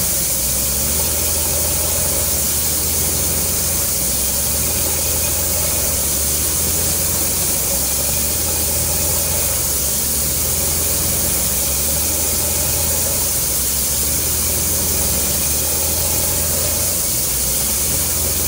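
Stallion truck-mounted PDTHR-200 water-well drilling rig running while drilling: a steady engine drone under a strong, even hiss that does not change.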